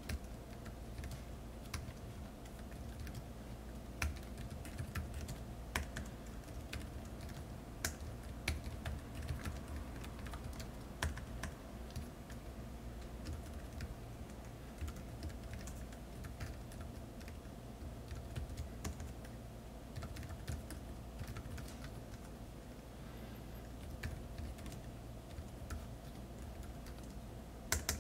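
Typing on a VAIO Z laptop keyboard: an irregular, continuous patter of shallow-stroke key presses, with a few harder strikes standing out. The deck is rigid and does not flex under hard keystrokes, and the harsh clattering is well suppressed, leaving the key sound fairly quiet. A low steady hum runs underneath.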